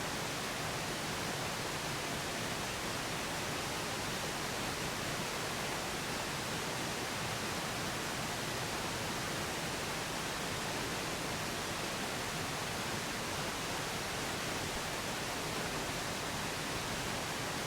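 Steady pink noise, an even hiss with no change throughout.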